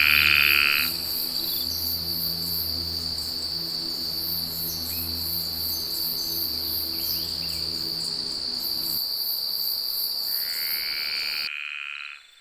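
Swamp night chorus of crickets: a steady high trill under rapid, very high chirping insects. A low pulsing hum runs beneath it until about three-quarters of the way through. A loud buzzy call sounds at the start and again near the end, and the whole chorus cuts off suddenly about a second before the end.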